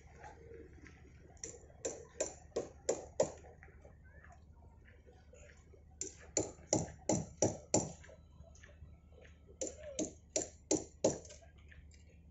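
Sharp knocks, like hammer blows, in three bursts of five or six at about three a second, with short pauses between the bursts, over a faint steady low rumble.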